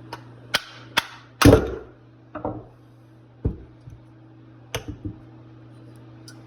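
Hand tools and carburetor parts knocking and clicking on a workbench during disassembly: a string of sharp, irregular knocks, the loudest about a second and a half in.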